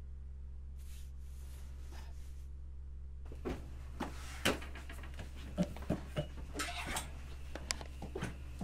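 Low steady hum, with a run of irregular knocks and clicks beginning about three seconds in, like things being handled and moved.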